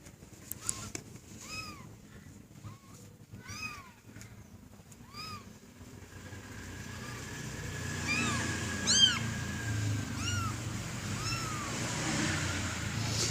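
Kitten mewing over and over: short, high, arched mews about once a second, the loudest about two-thirds of the way through. A low rumble grows in under them from about halfway.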